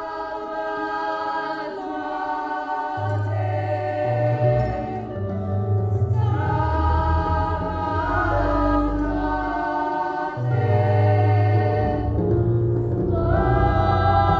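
Choral music: voices singing long held chords in slow phrases, with a deep low part coming in about three seconds in.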